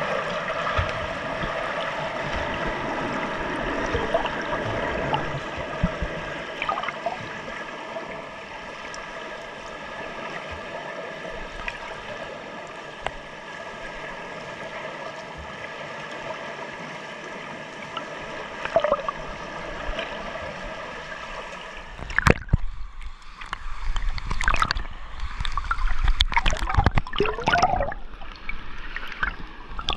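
Swimming pool heard underwater: a steady, muffled hum with a few held tones. About three quarters of the way through it gives way to loud, irregular splashing and sloshing of water as the surface is broken.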